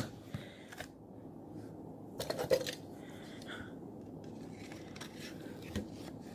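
Scattered light plastic clicks, with a short cluster of clicking and scraping about two seconds in, from a Samsung Galaxy Grand Prime smartphone being handled while its heat-softened, glued-on screen is worked loose.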